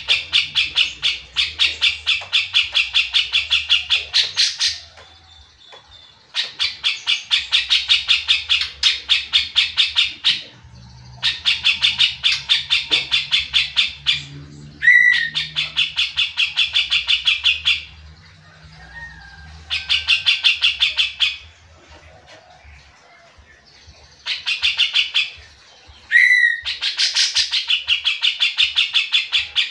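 Cucak jenggot, a caged Alophoixus bulbul, singing in phrases of fast repeated harsh notes, about five a second, each phrase a few seconds long with short pauses between. Twice a phrase opens with a sharp note that slides down in pitch.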